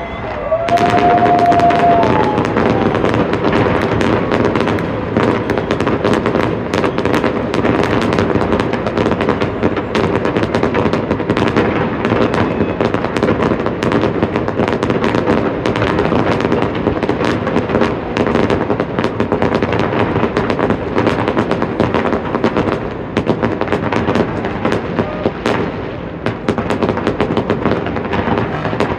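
New Year's fireworks display: a continuous barrage of rapid bangs and crackles as many shells burst in quick succession, without a pause.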